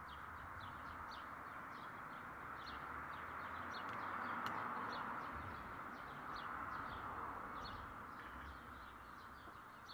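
Small birds chirping, several short high chirps a second, over a faint steady hiss that swells a little in the middle. One faint sharp click about four and a half seconds in.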